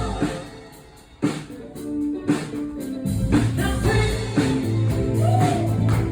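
Music with singing, guitar and drums; a steady beat with a bass line comes in about three seconds in.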